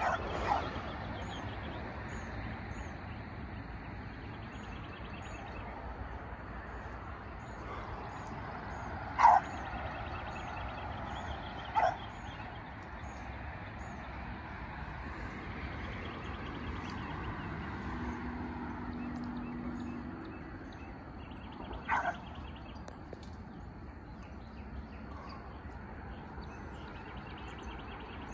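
A beagle pup barking: a few single barks spread far apart, the loudest near the middle, over a steady hiss of background noise.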